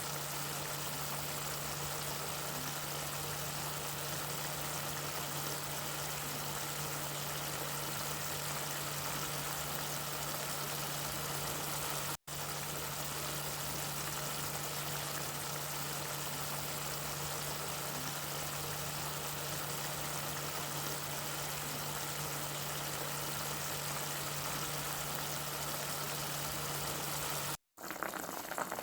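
Pot of water boiling steadily on the stove over a constant low hum. The sound cuts out for an instant twice: about twelve seconds in and near the end.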